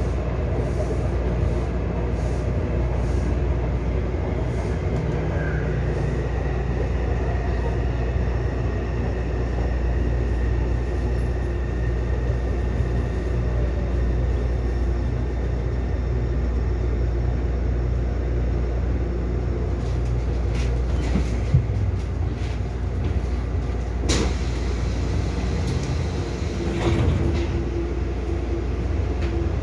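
Taipei Metro C301 train's IGBT-VVVF traction equipment braking as the train slows into a station and comes to a stop, with a steady low rumble of the car and a faint falling whine. A few sharp clicks come in the last third.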